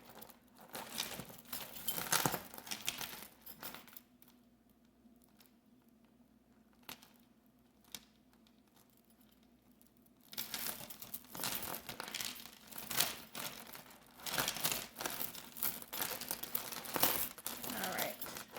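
Plastic crinkling and rustling as a bag of jewelry is rummaged through and pieces are pulled apart, in two spells of handling with a quiet stretch of about six seconds between them.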